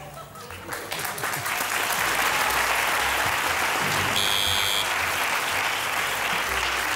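Studio audience applauding, building up about a second in and then holding steady, with a brief high beep about four seconds in.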